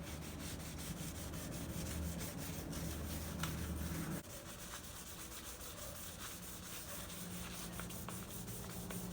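800-grit sandpaper rubbed back and forth by hand over a plastic headlight lens in quick, even strokes, taking off the old yellowed clear coat. A low hum runs underneath and drops in level about four seconds in.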